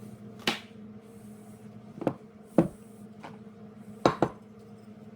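Metal parts and tools being handled on a workbench: five sharp knocks and clicks, two of them close together near the end, over a steady low hum.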